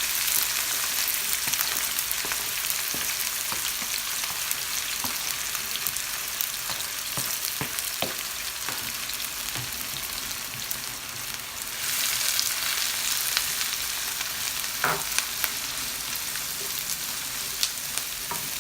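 Chopped onions, peppers and carrots sizzling in hot olive oil in a frying pan, with scattered clicks and scrapes of stirring; the sizzle grows louder about twelve seconds in.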